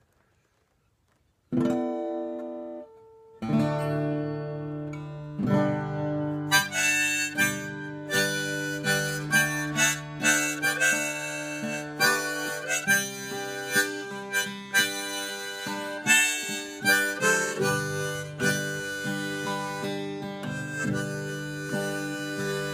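Harmonica in a neck rack and strummed acoustic guitar playing an instrumental intro. A held harmonica chord comes in about a second and a half in, breaks off briefly, then the harmonica plays on over steady guitar strumming.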